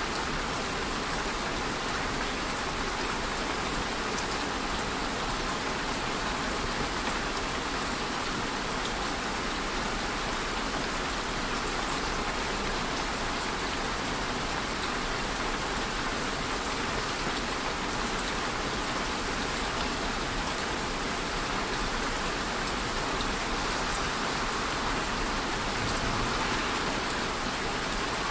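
Steady rain falling on surfaces, a constant even patter of drops.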